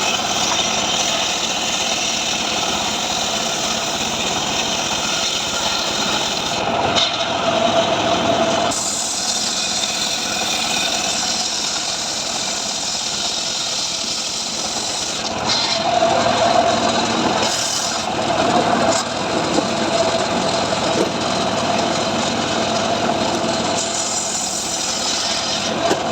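Engine-driven power saw running continuously while cutting dry mahogany wood. It grows louder and higher-toned in stretches about seven seconds in, around sixteen seconds in, and near the end.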